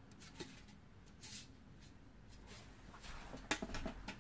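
Faint handling noises of unpacking parts from a box: light rustles and a few small knocks, with a quick cluster of clicks near the end.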